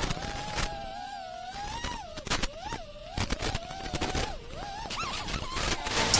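Brushless motors of a freestyle FPV quadcopter (iFlight Xing2 2306 1750kv) whining. The pitch keeps swooping up and down as the throttle is worked, with occasional sharp clicks.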